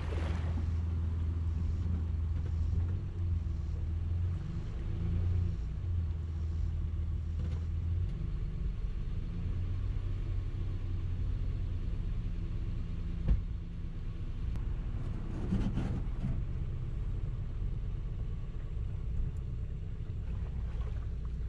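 Nissan pickup truck's engine running with a steady low rumble as it handles the boat trailer on a launch ramp. A single sharp knock comes about 13 seconds in.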